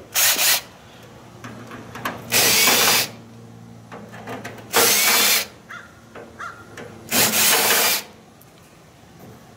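Cordless drill driver spinning out the case screws of a microwave oven through a tamper-proof Torx bit: four short runs of the motor, about two seconds apart, with small clicks between them.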